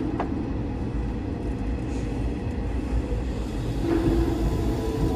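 Hanshin 9000 series electric train running at speed, heard from inside the passenger car: a steady rumble of wheels on rail with a faint steady hum, growing a little louder about four seconds in.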